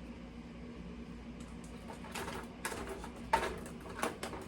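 Cans and seasoning containers being moved and set down on a cabinet shelf: a handful of light knocks and clinks, most of them in the second half, over a low steady hum.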